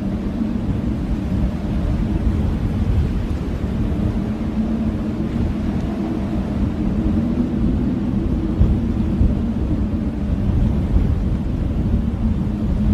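Blizzard wind blowing steadily with a deep rumble and a low, wavering howl.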